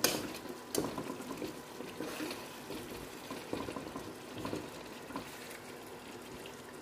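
Stuffed bell peppers sizzling in oil in a steel pan over low gas, with a steel spoon knocking and scraping against the pan as they are turned. Two sharp knocks come in the first second, then lighter clicks over the steady crackle.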